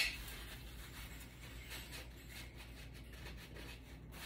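Faint rubbing and rustling of a wadded towel pressed by hand over glued wooden cut-out pieces on a wooden sign, with a brief louder handling rustle at the start.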